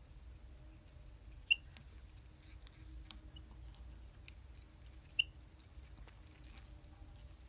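Quiet handling at a fly-tying vise: faint scattered ticks and rustles of fingers, thread and tools. Two sharp clicks that ring briefly, about four seconds apart, are the loudest sounds, over a low steady hum.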